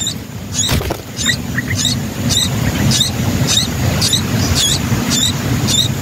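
Nestlings begging: short, thin, high squeaks repeated evenly about twice a second over a low steady background rumble.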